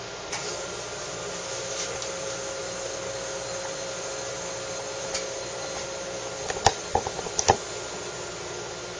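Espresso-making equipment running with a steady mechanical hum and a faint tone that stops about six seconds in. A few sharp knocks follow in quick succession.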